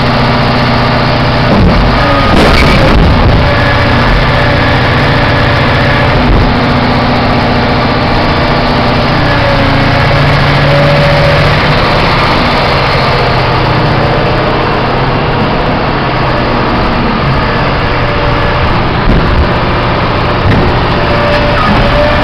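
Caterpillar 5130B hydraulic mining shovel's diesel engine running loud and steady under load, its pitch and level shifting as the boom and bucket move and the upper structure swings. A thin whine sits above the engine.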